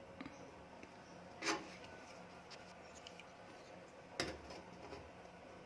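Quiet light handling: faint rubbing and small ticks, with two sharper clicks about a second and a half in and about four seconds in, over a faint steady low hum.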